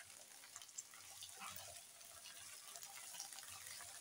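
Cut okra frying in oil in a karahi: a faint, steady sizzle with a few small crackles.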